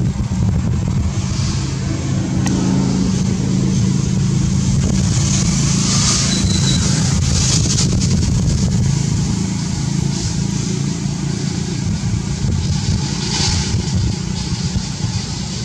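A motor engine running steadily: a low, even hum with a hiss over it.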